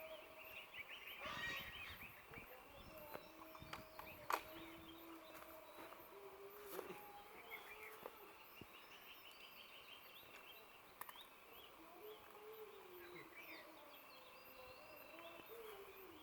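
Faint outdoor ambience of small birds chirping and trilling on and off, with a sharp click about four seconds in and a few fainter ticks.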